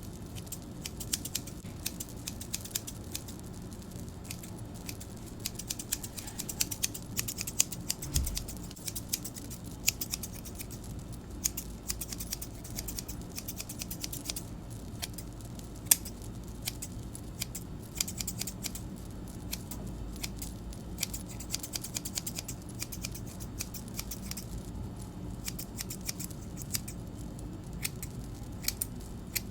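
Scissors snipping hair in a quick trim: many sharp, irregular metal clicks, close to the microphone.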